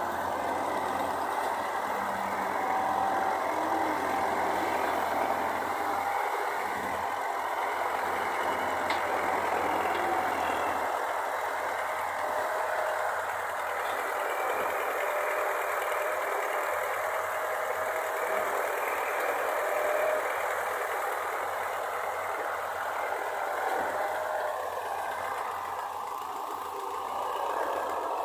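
Engine of heavy farm machinery running steadily.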